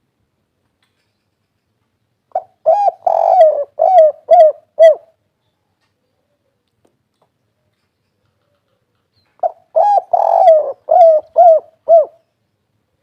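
Spotted dove singing its 'kuk 3' song twice: each phrase is a run of short coos with one longer rolling coo in the middle, ending in three separate 'kuk' notes.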